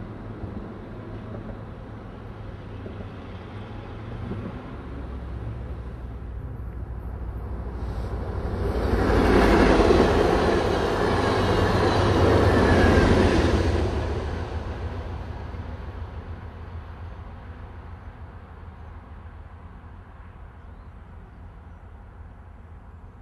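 Amtrak Talgo passenger train passing close on jointless rail, its wheel-on-rail rush building up, loud for several seconds, then fading as it moves away, over a steady low rumble of freight rolling by.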